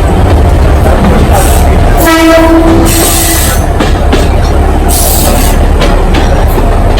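Alishan Forest Railway train running with a steady heavy rumble, and one horn blast about two seconds in lasting about a second and a half.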